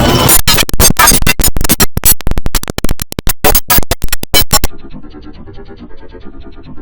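Computer operating system shutdown jingle (IBM OS/2 Warp 3) mangled by audio effects. It is loudly chopped into a fast stutter for about four seconds, then turns quieter and muffled, with notes repeating.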